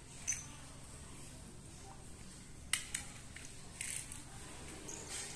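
Light plastic clicks and taps of a small toy helicopter being handled on a tiled floor: one sharp click just after the start, two close together about three seconds in, and a softer scrape a second later.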